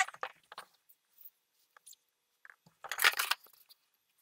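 Paper and small objects handled on a wooden tabletop: short rustles and scrapes, one near the start and the loudest, lasting about half a second, about three seconds in.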